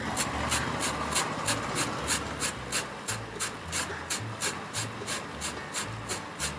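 A lemon being zested on the fine side of a flat metal grater: the peel rasps against the teeth in quick, even strokes, about three a second.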